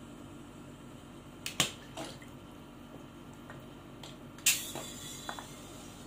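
Portable butane canister and brass refill adapter being handled: a sharp click and a smaller one, then about four and a half seconds in a short sharp hiss of gas that fades within half a second, as the adapter meets the canister valve, followed by a few small clicks.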